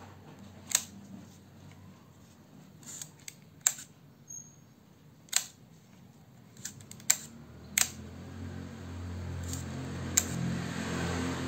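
Sharp mechanical clicks from the leaf shutter and its levers on a Ricohflex twin-lens reflex camera being worked by hand, about eight clicks, spread out at first and closer together around the seventh second. A low steady hum rises in the background over the last few seconds.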